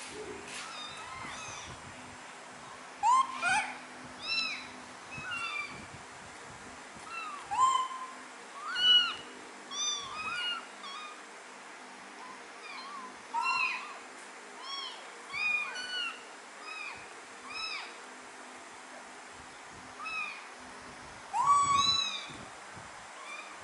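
Very young kittens mewing over and over, short high-pitched cries that rise and fall, several at different pitches, coming every second or so with a few short pauses.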